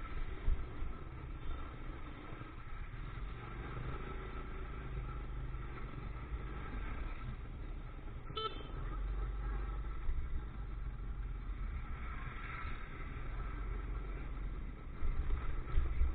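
Motorcycle riding through town traffic: a steady low engine and road rumble, with a brief click about eight seconds in.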